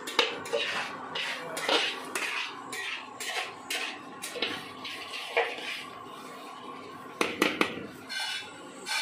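Metal spoon scraping and knocking against a metal pan while stirring thick masala, in irregular strokes a few times a second.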